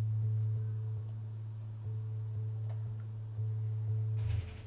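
geoMusica's synthesized low, pure, sine-like tone, held steadily and renewed about every second and a half as the rotating geometry triggers its notes. A few faint ticks sit on top.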